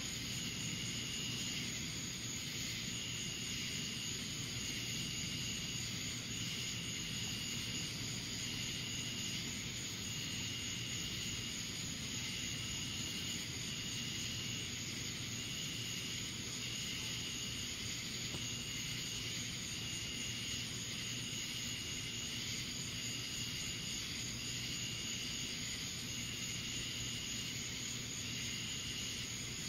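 Night insect chorus: a short, high, pulsing call repeating about once a second over a steady high trill, with a faint low hum underneath. No thunder is heard.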